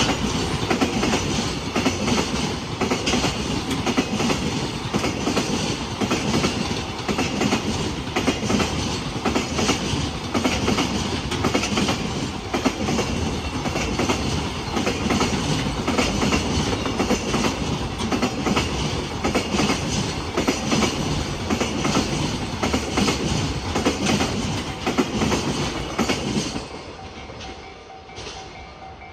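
Freight train wagons rolling past at close range, their wheels beating a rapid clickety-clack over the rail joints. The clatter holds steady, then falls away sharply near the end as the train clears.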